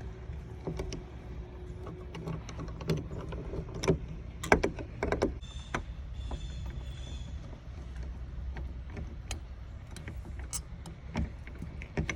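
Screws being taken out of an RV entry door's latch: short runs of a small electric driver's motor whirring, with clicks and knocks from the screws and latch hardware.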